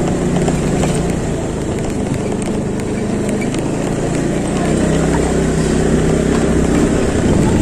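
Motorcycle engine running steadily as the bike rolls slowly along a narrow lane.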